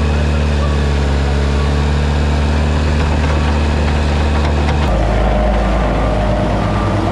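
Heavy diesel paving equipment running steadily at a constant speed. About five seconds in, the engine note changes abruptly to that of another machine.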